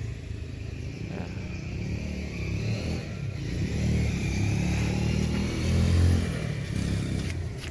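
Engine of a 250 cc Raptor-style ATV running, revved up in the middle and settling back near the end.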